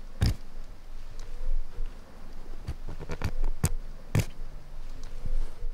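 Knife blade cutting into wood with short, sharp cracks, unevenly spaced: one strong one about a third of a second in, a quick cluster around three seconds, another strong one just after four seconds and a weaker one near the end.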